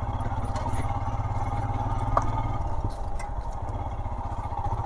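Royal Enfield Himalayan's 411 cc single-cylinder engine running at low, steady revs with a rapid thumping beat as the motorcycle rides over grass.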